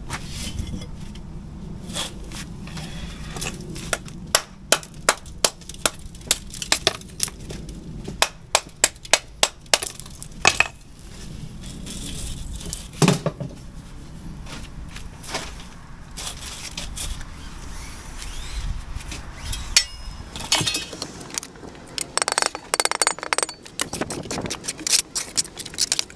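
Steel bricklaying trowel tapping and clinking on engineering bricks as they are bedded down into mortar, in quick runs of sharp taps.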